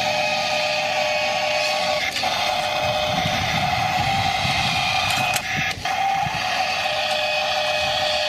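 A small electric motor whirring steadily, as in a battery-powered toy, with brief breaks about two seconds in and again around five and a half seconds.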